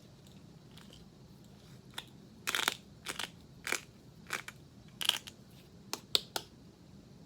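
Hand spice grinder crunching a blend of peppercorns, sea salt, coffee and chopped onion on its coarse setting: about eight sharp crunches, roughly two a second, starting a couple of seconds in.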